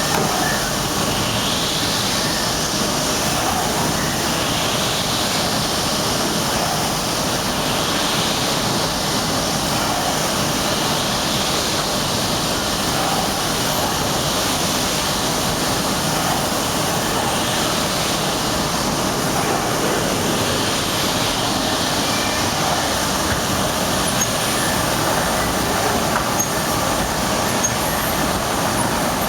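Soteco GREEN 633 professional wet-and-dry vacuum running steadily at full suction, drawing up water with a loud, even rushing noise.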